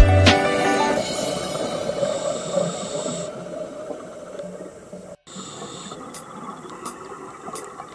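Underwater camera audio of a scuba diver breathing through a regulator: a noisy hiss and rumble of exhaled bubbles that fades gradually, with a short silent break about five seconds in. Background music cuts off just after the start.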